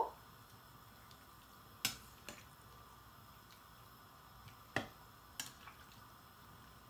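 Metal slotted turner knocking against a stainless-steel pot while stirring vegetables in water: four sharp clinks, two about two seconds in and two about five seconds in, over a faint steady background hiss.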